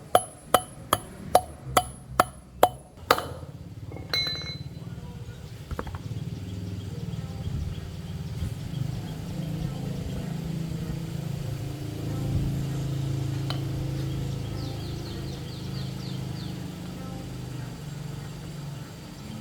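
A hammer striking metal about two and a half times a second for the first three seconds, each blow ringing. After that comes a steady low hum.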